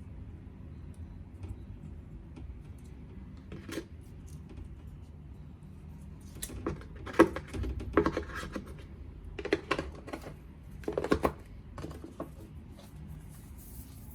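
Handling of an iPad and its packaging: short clusters of light taps, clicks and scrapes, busiest in the middle and later part, over a faint low hum.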